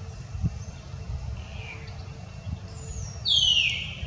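A loud, high-pitched animal call that glides down in pitch about three seconds in, after a fainter short call near the middle, over a low steady rumble.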